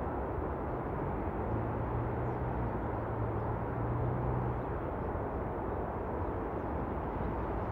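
Steady, distant city traffic noise, with a low hum joining in between about one and a half and five seconds in.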